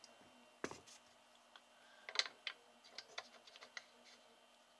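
Faint clicks and taps of small objects being handled and set down on a tabletop, with a soft thump about half a second in and a run of light clicks between two and four seconds in.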